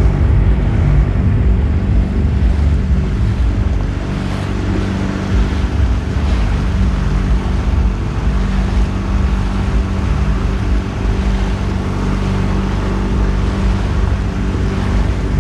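Motorboat engine running steadily under way, with water rushing and wind buffeting the microphone.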